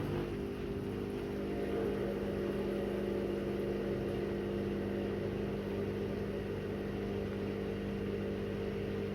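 AEG front-loading washing machine running mid-program before its spin, a steady even hum with no rise in speed.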